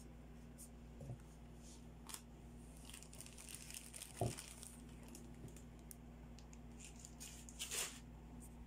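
Faint crinkling and rustling of a clear plastic bag wrapped around a folded T-shirt as it is handled and lifted out of a cardboard box. There is a sharp knock about four seconds in and a louder rustle near the end.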